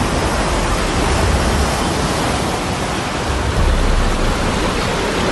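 Fast-flowing floodwater in a swollen river, a loud steady rush of water with uneven low rumbling underneath.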